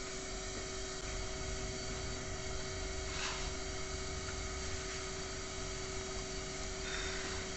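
Steady hum and hiss, with two faint rustles as padded rifle bags and sacks are shifted on a stack, about three seconds in and again near the end.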